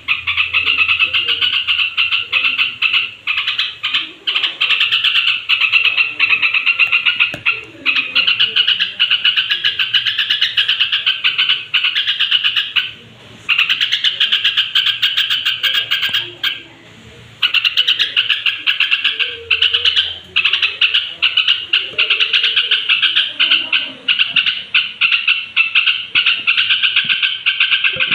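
Yellow-vented bulbul (cucak trucuk) singing, a rapid, near-continuous chattering song that breaks off briefly twice about halfway through.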